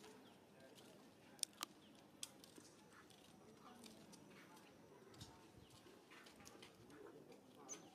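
Near silence: faint outdoor ambience with a low murmur. A few sharp clicks come about a second and a half in, and a faint high chirp near the end.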